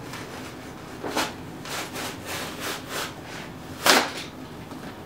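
Styrofoam packing being cut with a blade in short sawing strokes, about three scratchy rasps a second, with one louder stroke near the end.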